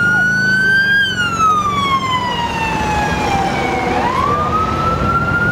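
Emergency vehicle siren in a slow wail. It climbs to a peak about a second in, slides down over about three seconds, then climbs again near the end, over the steady rumble of passing vehicles.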